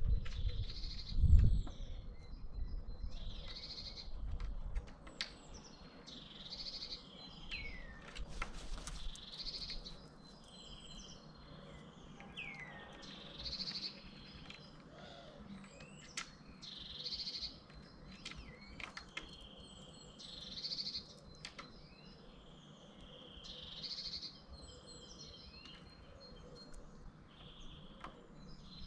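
A small songbird singing short, repeated phrases about every three to four seconds. A couple of low thumps come through, the loudest about a second in and another around eight or nine seconds in.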